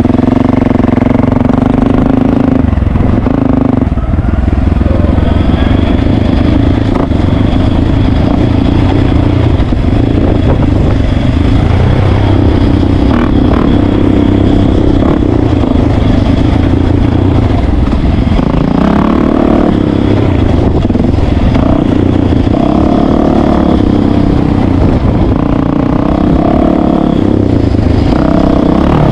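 Yamaha YZ450FX dirt bike's single-cylinder four-stroke engine running under way on a trail, its revs rising and falling with the throttle.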